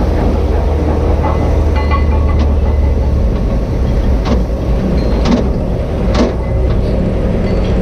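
Heavy diesel engine running steadily, with a few sharp knocks about a second apart in the second half.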